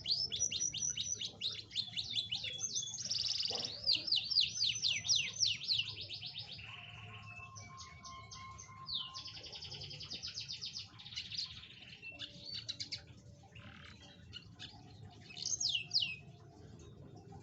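Domestic canary singing: rapid high trills of quickly repeated rising-and-falling notes, loudest in the first few seconds, then softer phrases, with one short loud phrase near the end.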